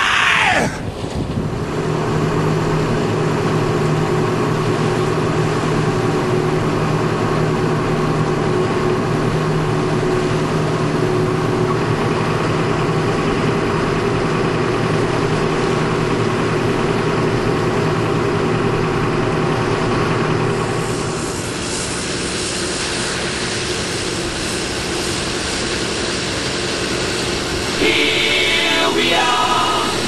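John Deere 6930 tractor's six-cylinder diesel engine running steadily under load while pulling a four-furrow reversible plough. The sound drops slightly in level about two-thirds of the way through.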